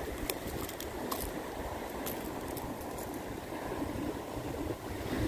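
Steady wash of surf on a rocky seawall mixed with wind on the microphone, with a few light clicks in the first two seconds or so as a fish lip-grip and pliers are handled.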